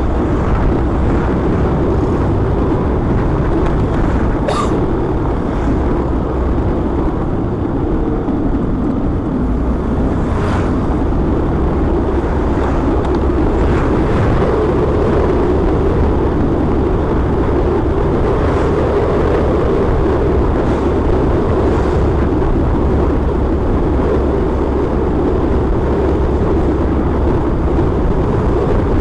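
Steady rush of wind and road noise from a moving motorcycle, with its engine running underneath, unbroken throughout.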